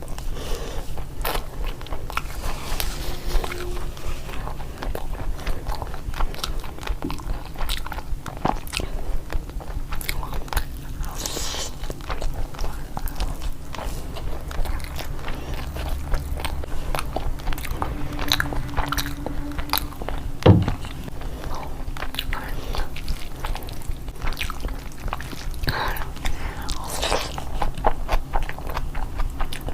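A person eating curry and pulao close to the microphone: continuous chewing and biting, with many small wet mouth clicks and occasional crunches. One sharper knock stands out about two-thirds of the way through.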